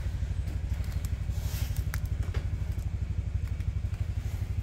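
A steady low motor drone with a fast, even pulse, with a few light clicks and scrapes on top.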